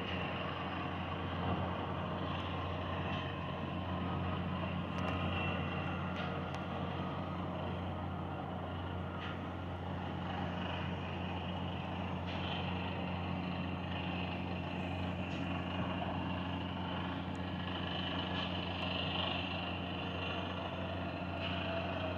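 Heavy diesel earthmoving machinery running: a steady low engine drone with a few faint knocks.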